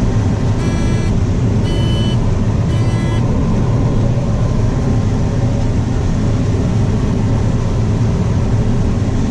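A combine harvester runs steadily while harvesting corn, heard from inside the cab as a heavy, even drone. Near the start come three short electronic beeps about a second apart, a cab warning tone.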